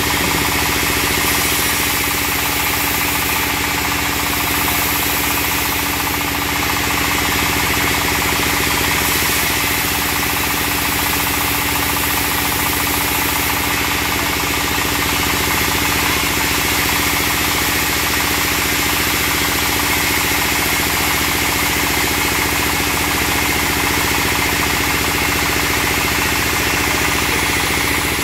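A stationary engine running steadily, driving a vertical band sawmill as a log is pushed through the blade during a test cut.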